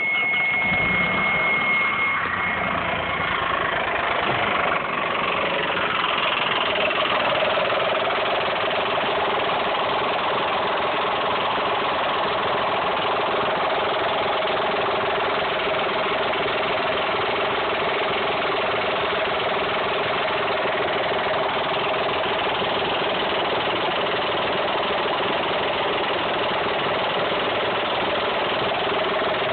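Dodge Stealth/Mitsubishi 3000GT 3.0-litre V6 starting and then running steadily with the timing belt cover off, making the noise that had been taken for lifter clatter or a spun bearing. The owner suspects a loose timing belt and a failing timing belt tensioner. A steady high beep sounds for the first two seconds.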